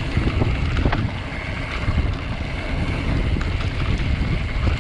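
Wind buffeting a GoPro microphone during a mountain bike descent on a dirt singletrack, a steady low rumble with scattered clicks and rattles from the bike and tyres over the bumpy trail.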